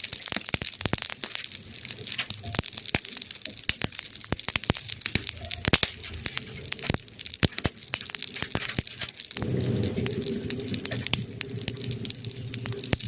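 Campfire burning, wood crackling and popping in frequent sharp snaps over a steady hiss. About nine seconds in, a low hum joins underneath.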